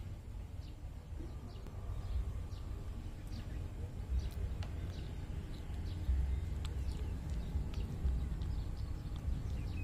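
Baby monkey chewing fresh green stems and leaves close up, making small irregular crunching clicks over a steady low rumble.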